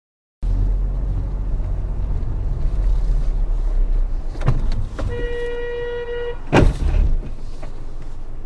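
Low, steady road and engine rumble of a moving car. About five seconds in, a car horn sounds steadily for about a second, and shortly after it comes a loud sudden thump, the loudest thing in the clip.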